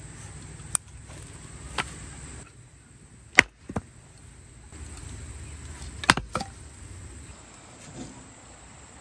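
A series of sharp, irregularly spaced knocks and clacks, about seven in all, the loudest about three and a half seconds in and again near six seconds, over a low rumble that fades out for a couple of seconds in the middle.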